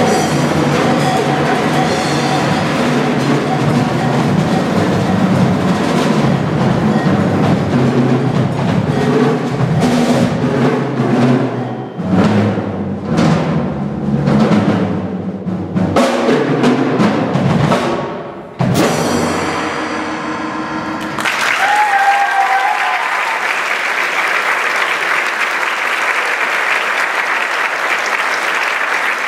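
Percussion ensemble with drum kit and concert bass drums playing the closing bars of a piece: a dense drum passage broken by heavy accented hits, then one final stroke left ringing about two-thirds of the way in. Audience applause follows and carries on.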